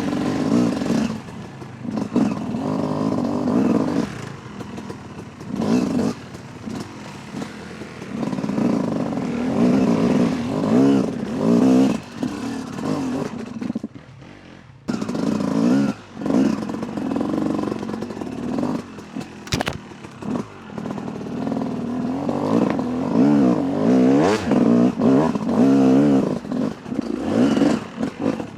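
Yamaha YZ 250 two-stroke dirt bike engine revving in short bursts and dropping back again and again while picking through rocky ground. The revs dip low briefly about halfway through, and there is one sharp knock a few seconds later.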